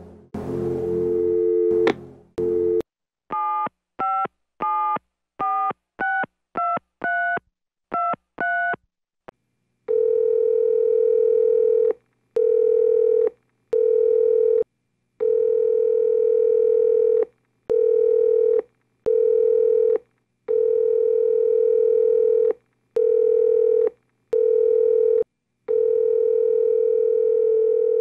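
Telephone call being placed: a steady dial tone, then about ten touch-tone keypad beeps as a number is dialled, then the ringing tone on the line, repeating in long stretches with short gaps while the call waits to be answered.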